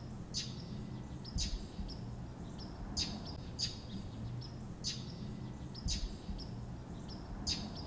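Small birds calling at first light: about seven sharp, high chip notes at irregular intervals, with fainter short calls between them, over a faint low steady hum.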